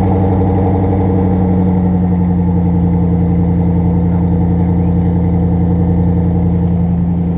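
Straight-piped truck engine idling, a loud, steady exhaust note with no muffler, heard from beneath the truck near the pipe.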